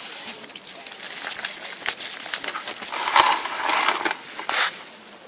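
Thin plastic bag rustling and crinkling as a hand digs into it, with scattered small clicks and taps; the loudest rustling comes about three to four and a half seconds in.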